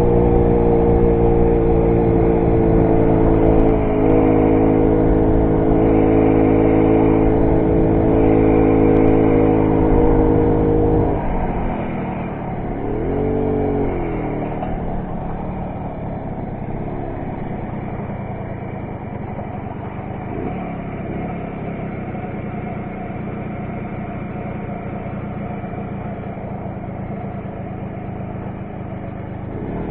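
Derbi Variant moped's small two-stroke engine running at a steady pace, then easing off to a lower idle about eleven seconds in, with a short rev soon after and idling through the rest.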